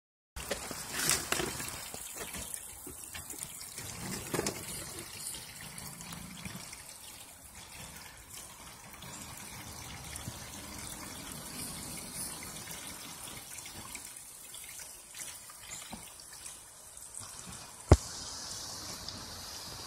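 Condensate water pouring steadily out of a PVC drain pipe and splashing onto wet ground, as water is pulled out of an overflowed secondary drain pan. A single sharp knock near the end, after which the splashing is brighter.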